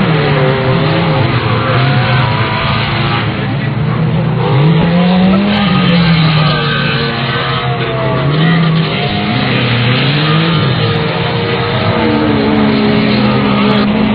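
Demolition derby car engines revving hard, their pitch rising and falling several times, over a dense rough noise.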